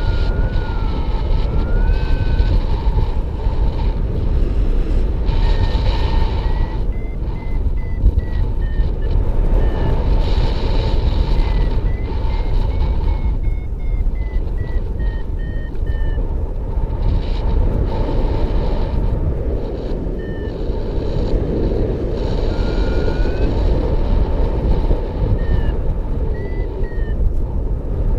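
Paragliding variometer beeping over heavy wind noise on the microphone. The beeps glide up and down in pitch and come in runs of short pulses several times, the tone a variometer gives when the glider is climbing in lift.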